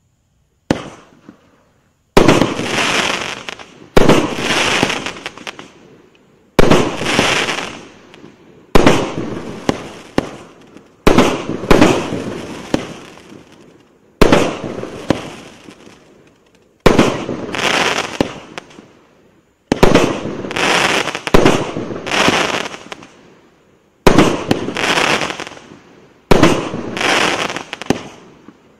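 F2 consumer fireworks cake (battery of shot tubes) firing shot after shot, about one every two seconds. Each shot is a sharp bang that trails off over a second or two.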